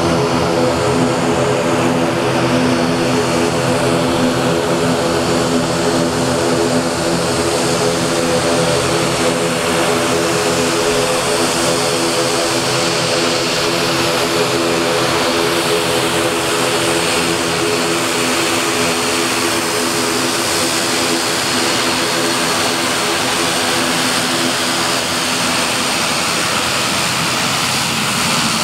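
ATR 72-600 twin turboprop taxiing at low power, its Pratt & Whitney PW127 engines and propellers giving a steady droning hum with a thin high whine on top.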